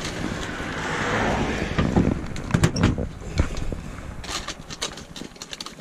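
Rustling followed by a run of sharp metallic clicks and clinks as wire is cut and handled with pliers, over a low steady rumble.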